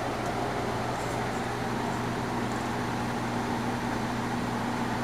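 Steady, even background hum with a low drone, unchanging throughout.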